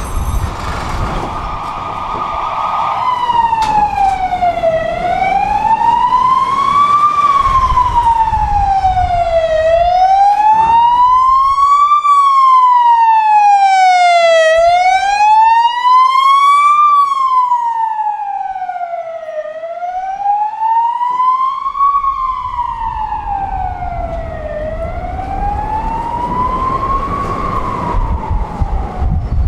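Emergency vehicle siren sounding a slow wail that starts a few seconds in. Its pitch rises and falls about every five seconds, and it grows loudest in the middle and then fades. A tram's low running rumble lies underneath at the start and the end.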